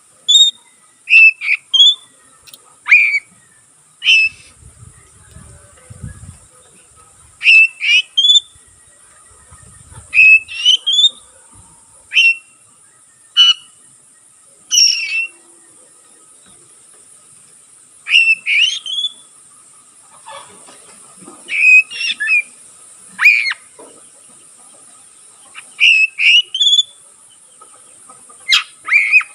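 Oriental magpie-robin (kacer) singing vigorously in short, loud phrases of sharp whistled and rising notes, a burst every second or two, over a steady high-pitched hiss.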